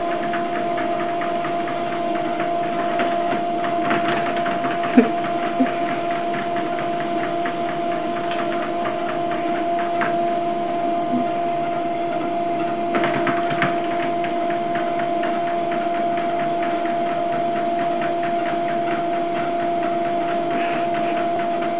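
Electric treadmill running: a steady motor hum with the belt's fast ticking hiss, and two sharp knocks about five seconds in.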